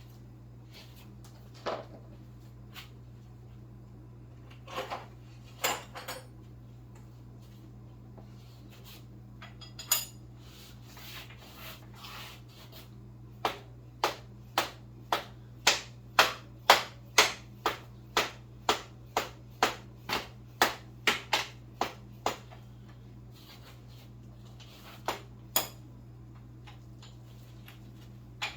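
Hammer tapping on metal while the swingarm pivot bolt is driven back through the swingarm bearings: a few scattered taps, then about halfway in a steady run of about eighteen blows, roughly two a second, and two last taps near the end.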